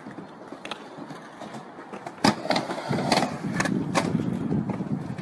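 Skateboard on a wooden mini ramp: several sharp clacks of the board hitting the ramp, the loudest a little over two seconds in, with the rumble of urethane wheels rolling on the wood growing louder from about three seconds in.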